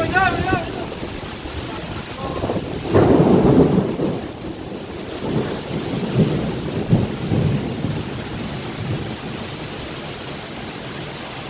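Thunderstorm: steady rain with rolling thunder. The loudest rumble swells about three seconds in, and more rumbles follow a few seconds later.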